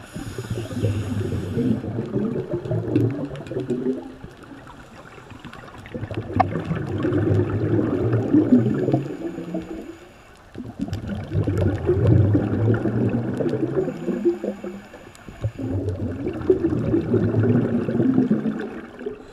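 Scuba diver's exhaled breath bubbling out of the regulator underwater: four long gurgling bursts of bubbles, each a few seconds long, with short lulls between breaths.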